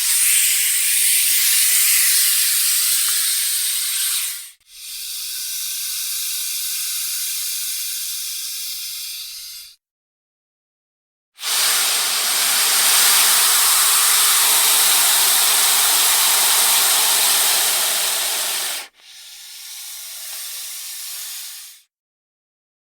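Snake hissing: four long hisses of about three to seven seconds each, each ending abruptly. The first and third are the loudest, and there is a short silence between the second and third.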